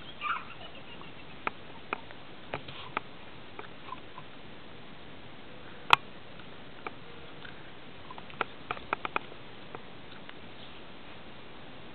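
Small white long-haired dog sniffing right at the microphone, with scattered sharp clicks and taps as its nose and fur brush against the camera; the loudest click comes about halfway through and a quick cluster follows a couple of seconds later.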